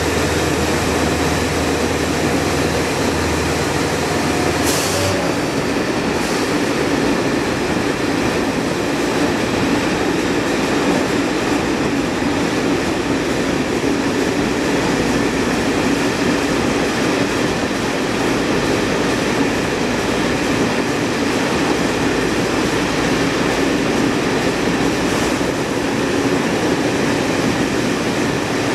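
X 2800 diesel railcar running through a tunnel: the steady noise of wheels on rail and engine, reflected back by the tunnel walls. A low drone in the first seconds stops about five seconds in, and a couple of brief sharp sounds come around then.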